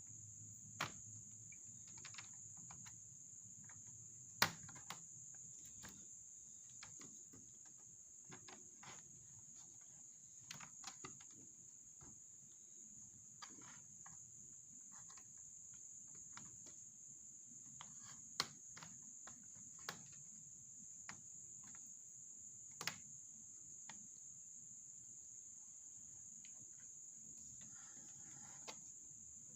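Faint scattered clicks and taps of small parts and tools being handled while a laptop is taken apart, over a steady high-pitched background whine. The sharpest click comes about four seconds in.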